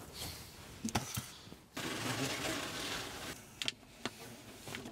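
Quiet handling of self-adhesive vinyl wrap film: a couple of light clicks about a second in, then about a second and a half of rustling scrape as the film is worked, then two more quick clicks.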